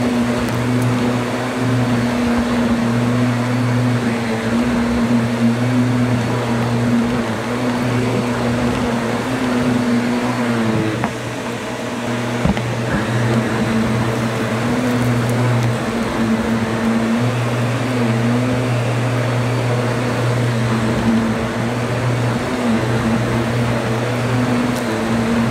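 Black & Decker upright vacuum cleaner running on carpet: a steady motor hum over a whooshing rush of air, with a brief dip in level about eleven seconds in.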